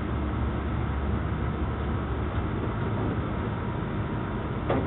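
Direct-drive washing machine running with a steady low hum and rumble.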